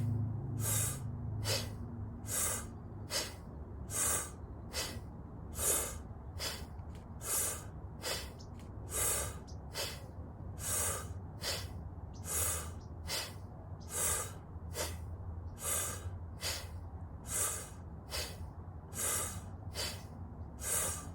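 Rapid rhythmic breathwork: quick inhales through pursed lips alternate with forced, sneeze-like exhales snorted out through a scrunched nose while the belly squeezes in. The breath sounds come at a steady pace of a little more than one a second.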